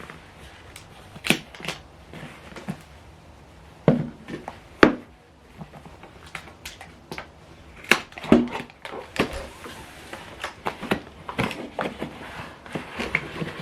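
A cardboard product box being handled and opened: scattered knocks, taps and short scrapes, with a few louder thumps about four to five seconds in and again around eight seconds.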